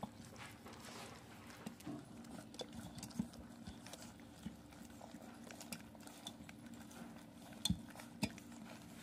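Puppies licking and chewing half-frozen raw food in a stainless steel bowl: soft wet smacking with small irregular clinks of mouths and paws against the metal, and two sharper knocks near the end.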